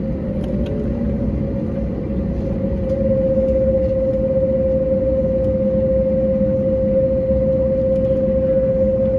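Airbus A321neo's Pratt & Whitney PW1100G geared turbofan engines heard from inside the cabin while taxiing: a steady low rumble with a clear humming tone, which rises slightly and grows a little louder about three seconds in, then holds steady.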